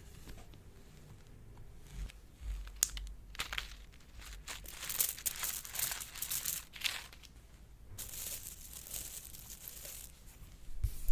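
Slime being squeezed and stretched by hand, giving crinkly crackling sounds in two stretches with a short pause between.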